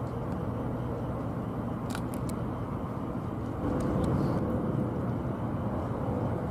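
Boeing 777-300ER's twin GE90-115B turbofans at takeoff thrust during the climb-out, heard from a distance as a steady low rumble that swells slightly about four seconds in.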